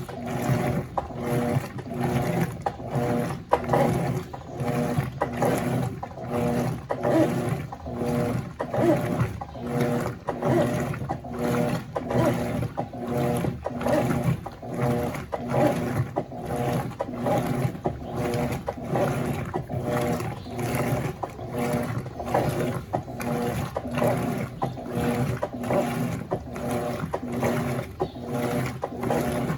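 Electrolux LF90 top-loading washing machine agitating a load of towels in water on turbo agitation: the agitator swings back and forth in an even rhythm, roughly once a second, over the steady run of the motor and gearbox.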